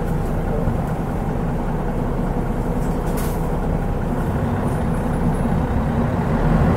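Mitsubishi Fuso Aerostar city bus's turbocharged 6M70 six-cylinder diesel engine running steadily, heard from inside the bus, with the low rumble growing louder near the end.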